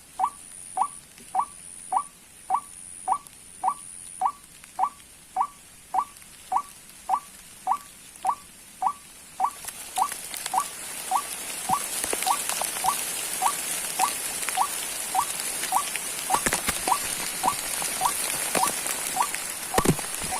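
White-breasted waterhen calls: one short, upward-flicking note repeated steadily about twice a second. From about halfway a hiss with scattered clicks rises beneath the calls.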